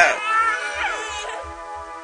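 A small child crying briefly, a wavering cry that fades out after about a second and a half. It sits over background music: a held chord with a soft, quick low beat, which is all that remains afterwards.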